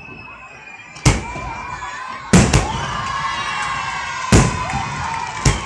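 Aerial fireworks bursting: five sharp bangs, the first about a second in, two close together in the middle, one later and one near the end, with children's voices cheering in between.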